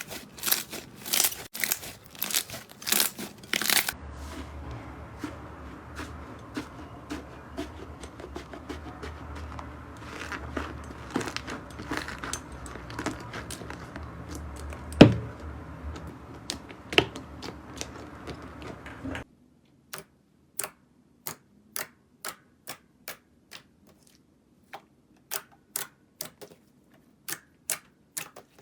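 Slime ASMR: slime being squeezed and poked close to the microphone, with crunchy crackles at first and then sticky clicks and pops. A low hum sits under the middle part, which has one loud pop. From about two-thirds of the way in come separate clicks, about two a second, over silence.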